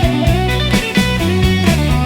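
Instrumental break in a psychedelic rock song: electric guitar over a bass line and a steady drum beat, with no vocals.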